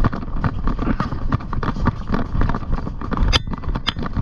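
A ridden pony's hooves striking the ground in a quick, uneven run of beats. Two sharper knocks come about half a second apart near the end.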